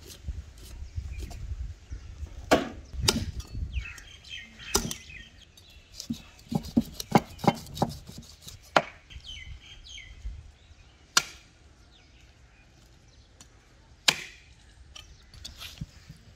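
Large knife chopping through a goat carcass on a table: sharp, separate chops, a quick run of strokes in the middle, then single strikes a few seconds apart.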